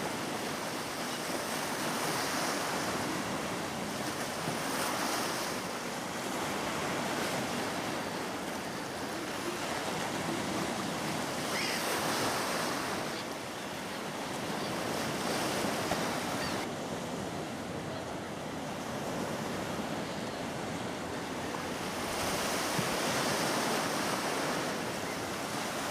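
Sea surf washing onto the shore, swelling and easing every few seconds.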